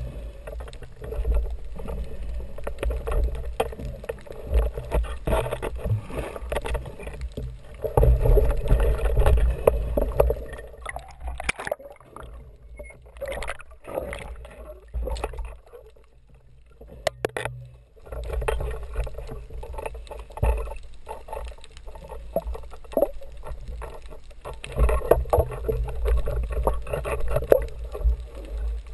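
Underwater noise picked up by an action camera: a low rumble of water moving against the housing, with scattered clicks and crackles. It drops away for a few seconds in the middle, then returns.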